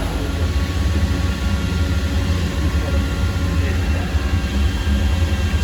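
Mori Seiki NL2500SMC/700 CNC lathe running, a steady whine of several high tones over a strong low rumble.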